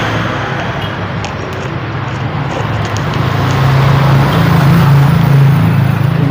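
Road traffic: a vehicle engine's low drone, growing louder over the last two seconds or so, over the hiss of tyres and other passing vehicles.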